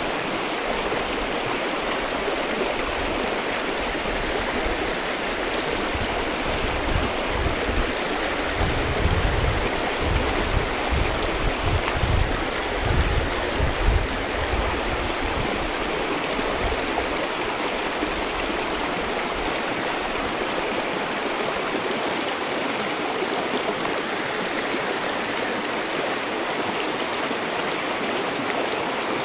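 Small mountain creek flowing, a steady rush of water. A low rumble surges and fades in the middle.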